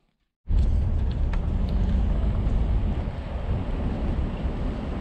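Car driving along a road: a steady low engine and road rumble, starting about half a second in.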